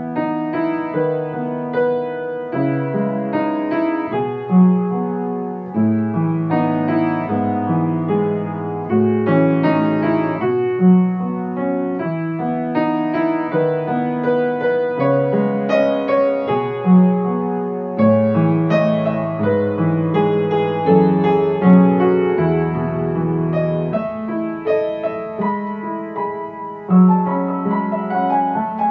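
Slow, calm instrumental music led by piano, its notes struck one after another and left to ring.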